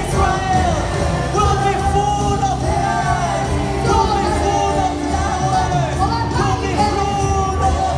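Live worship music: a band playing with several singers on microphones singing a melody over a steady bass.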